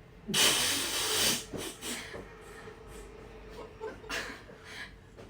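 A sudden loud hiss of breathy noise lasting about a second, followed by a few shorter, softer puffs.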